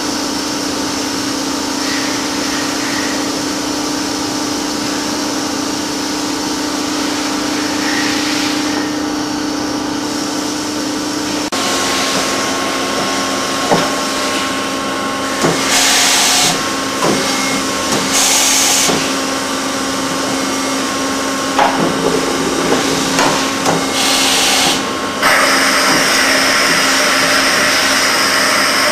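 Csepel YBM 90 N horizontal machining centre running under power: a steady machine hum with a constant low tone. In the second half, short bursts of hissing and scattered sharp metallic clicks and knocks come through over the hum.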